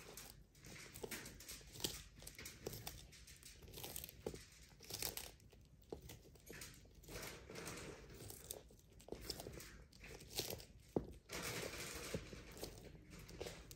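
Sulcata tortoise eating, with irregular crunching and tearing bites and sharp little clicks.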